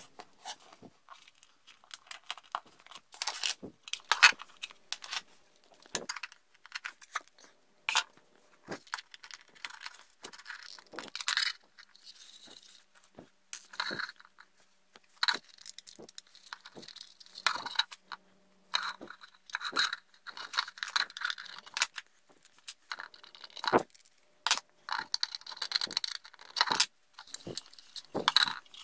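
Irregular clicks, taps and scrapes of hands handling a 3D-printed plastic boat hull and small brass bearings on a tabletop.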